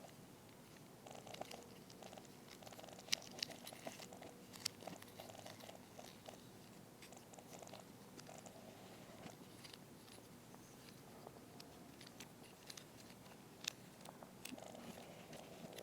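Quiet handling of a plastic Transformers action figure and its packaging: scattered sharp plastic clicks, the loudest about three, four and a half and thirteen and a half seconds in, over faint rustling.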